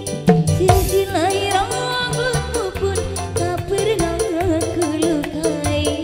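Live dangdut band music: a steady drum beat under keyboard and a wavering, ornamented melody line.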